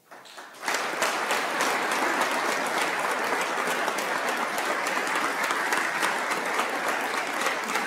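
Audience of legislators applauding, a dense steady clapping that starts about half a second in.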